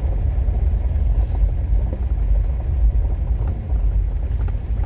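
Road noise inside a moving car's cabin on an unpaved road: a steady low rumble of tyres and engine, with a few faint knocks.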